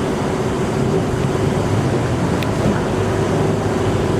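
A small boat's motor running steadily with a constant hum, under a loud wash of rough water and wind.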